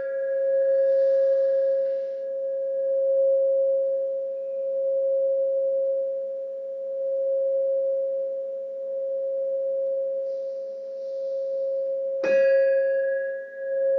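Singing bowl ringing with one sustained mid-pitched tone and faint higher overtones, swelling and fading slowly in a gentle wobble. It is struck again about twelve seconds in.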